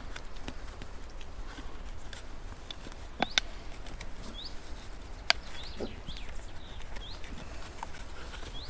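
A small bird repeats a short rising chirp about once a second over a low wind rumble on the microphone. Hands working a plastic bottle onto a branch give small ticks and crinkles, with two sharp clicks about three and five seconds in.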